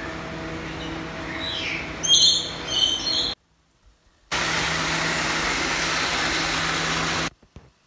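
A steady low hum with a few high chirping calls over it. After a short silent gap comes about three seconds of a small waterfall splashing steadily over a mossy rock, which cuts off suddenly.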